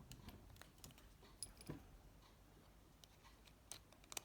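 Faint, scattered clicks and taps of small plastic phone-housing parts being handled and pressed, as a part is pushed to snap into place.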